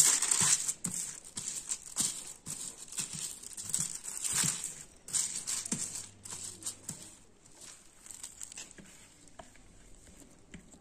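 A thin plastic sheet crinkling and rustling as gloved hands rub oil across it in repeated strokes, dying down in the last few seconds.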